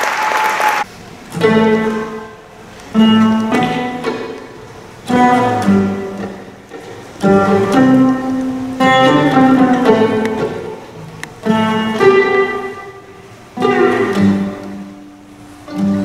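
Applause fading out in the first second, then a violin playing the opening of a song in short melodic phrases, plucked and bowed, each phrase starting sharply and fading away.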